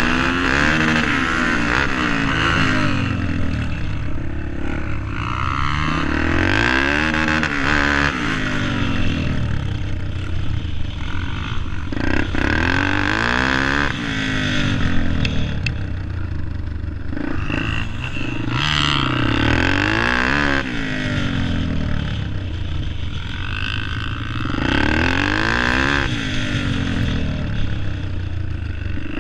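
Dirt bike engine heard from on board while riding, its pitch climbing and dropping again and again as the throttle is opened and closed.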